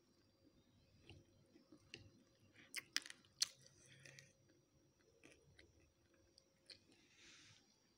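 Faint chewing of crispy fried chicken, with a few sharp crunches about three seconds in and scattered small clicks.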